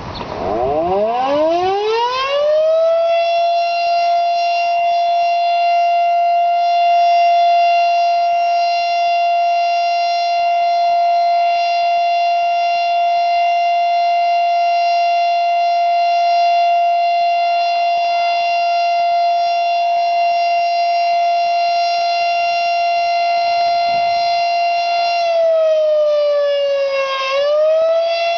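Outdoor civil-defense warning siren sounding the steady Alert signal of its monthly test: it winds up from a low pitch over the first couple of seconds to a steady high tone, holds it, then sags briefly in pitch and winds back up near the end.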